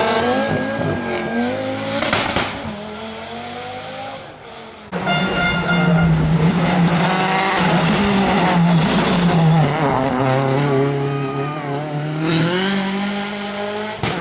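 Rally cars being driven hard, engines revving up and down through the gears. About five seconds in the sound cuts abruptly to another car working hard at high revs.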